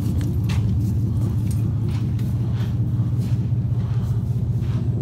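A vehicle engine idling: a steady low rumble, with a few faint clicks over it.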